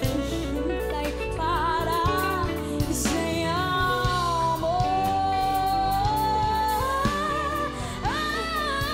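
A female solo singer sings through a handheld microphone over instrumental backing, holding long notes with vibrato and climbing to a higher held note near the end.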